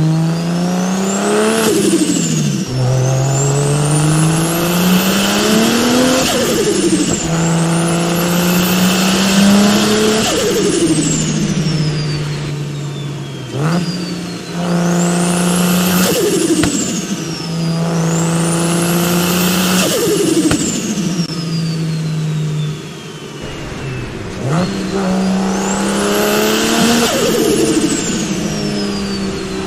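BMW N54 twin-turbo straight-six pulling through repeated bursts of throttle. The engine note climbs and then drops or levels off every few seconds, while high turbo whistles sweep up and down above it, with turbo flutter as the throttle is lifted.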